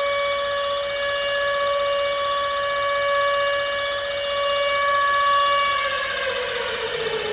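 Civil defense siren sounding one steady tone, then winding down in falling pitch about six seconds in.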